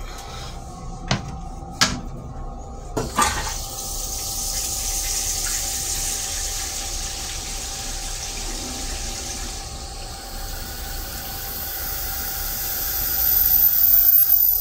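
Stainless-steel toilet in a Metro-North M3 railcar restroom flushing blue flush fluid. A few clicks in the first three seconds are followed by a steady rushing hiss of the flush for about ten seconds. A high thin whine rises near the end and is the loudest part.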